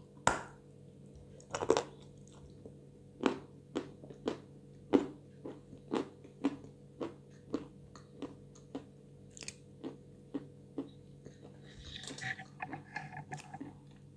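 A crisp bite into a chunk of white edible chalk, then steady crunchy chewing of it, about two crunches a second, growing softer. Near the end come quieter wet mouth sounds.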